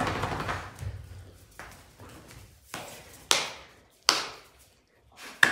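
Sharp hand smacks as a hand pats and swats playfully at a dog's head. There are a couple of soft ones, then three loud smacks in the last two and a half seconds, each dying away quickly.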